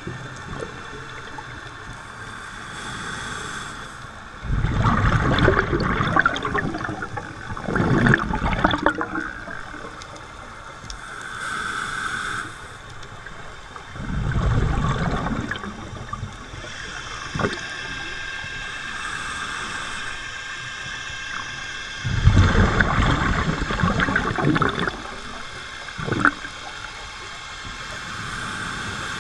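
Scuba diving heard underwater: four gurgling bursts of exhaled regulator bubbles, each a second or two long, over a steady hiss of water.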